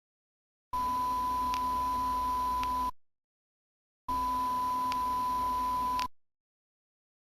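Electronic tinnitus-masking tone: a steady high-pitched beep sounding twice, about two seconds each, with silent gaps between, over a faint hum and hiss.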